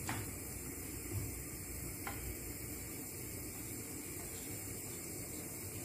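A wooden spoon stirs chicken and carrots in a pan of simmering broth, with two light taps of the spoon against the pan, one at the start and one about two seconds in, over a steady hiss.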